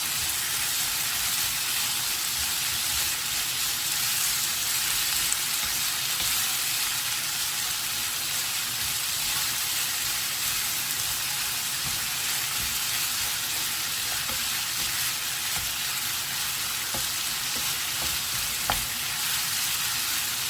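Julienned potatoes sizzling steadily as they stir-fry in a pan, with a few light knocks of a utensil against the pan.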